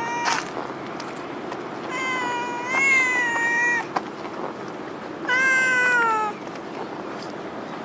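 A hungry stray cat meowing loudly: the end of one call at the start, then two long drawn-out meows that sag in pitch at the end, about three seconds apart.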